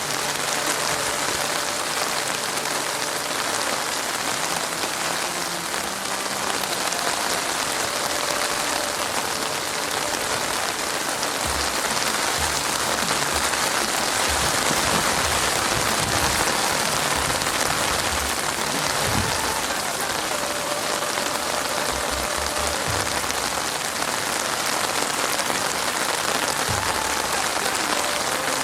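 Heavy rain falling steadily as a dense, even hiss, with scattered low thumps in the second half.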